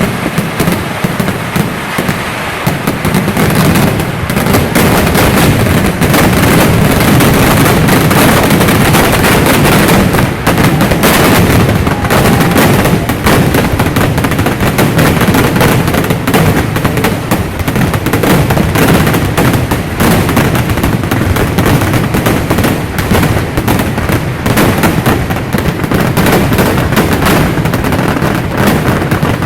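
Kerala temple fireworks (vedikettu): a loud, unbroken barrage of explosions going off many times a second, so close together that they merge into one continuous rattle with heavy low booms underneath.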